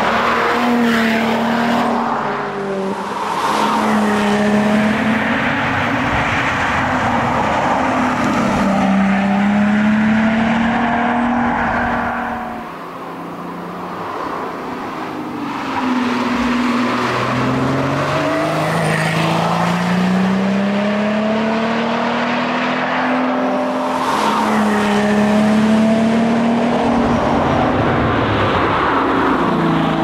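Lotus Exige S's supercharged engine at full throttle in several passing shots, its pitch climbing through each gear and dropping at the shifts. There is a quieter stretch about halfway through, before it comes back at full volume.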